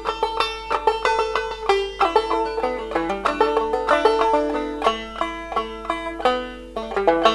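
Background music: a fast tune of quickly picked notes on plucked strings.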